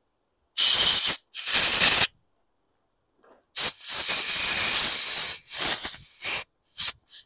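Compressed-air blow gun blasting air through a small plastic lawn mower carburetor part to clear dirt from its passages. It comes in bursts: two quick blasts, a longer one of about two seconds, then a few brief puffs.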